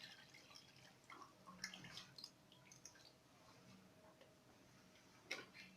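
Near silence: kitchen room tone with a few faint small clicks.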